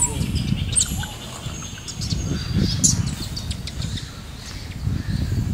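Birds chirping in a few short, high notes over a continuous low rumble.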